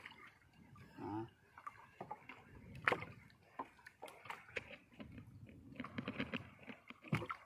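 Small boat on open water: faint water lapping against the hull, broken by scattered sharp clicks and knocks of fishing gear being handled, the loudest about three seconds in, and a brief voice about a second in.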